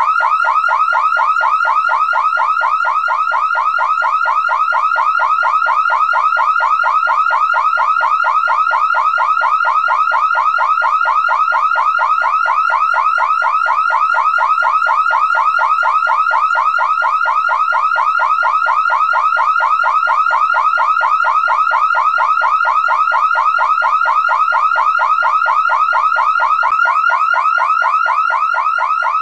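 Car alarm siren going off continuously: a loud, fast warble of short rising sweeps, repeating several times a second without pause.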